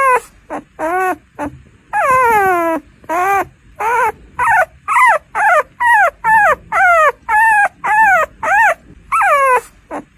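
Newborn puppy crying: a quick run of high-pitched whimpering cries, about two a second, each rising briefly and then falling in pitch, with one longer drawn-out cry about two seconds in.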